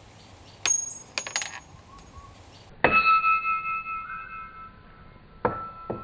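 Light metallic clinks about a second in, then a ringing tone that fades over about two seconds, and two more clinks with ringing near the end.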